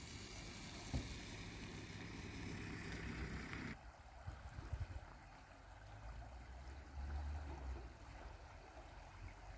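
Faint steady rush of the Moulouya River in flood. A brighter hiss cuts off abruptly about four seconds in, leaving quieter flowing water with low wind buffets on the microphone.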